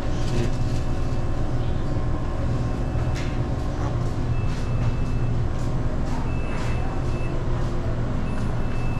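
Steady low machine hum of refrigerated drink coolers and their fans, with light handling clicks. A faint high beep sounds for about a second, repeating roughly every two seconds in the second half.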